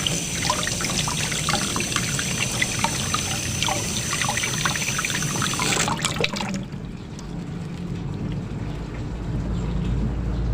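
Water pouring and splashing over small fish being rinsed clean, with many little splashes, stopping about six seconds in.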